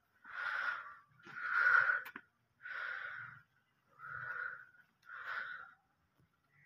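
Aseel chicken giving five hoarse, breathy calls about a second apart, the second one the loudest.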